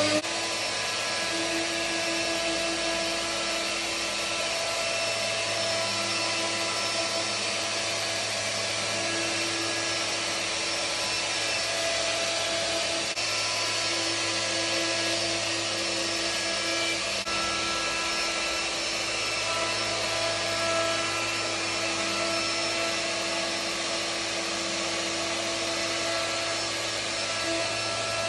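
Electric plunge router running steadily at full speed as it cuts along the edge of a timber tabletop. It makes a constant motor whine, with its pitch lines shifting slightly as the bit takes the wood.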